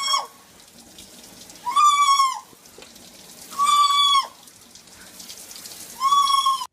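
A bird calling four times, about every two seconds. Each call is about half a second long, holds one fairly high pitch and drops at the end.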